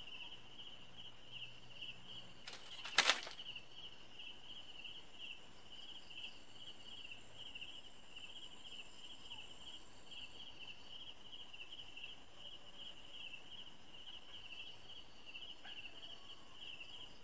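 Crickets chirping in a continuous, evenly pulsing high chorus, with one sharp knock about three seconds in.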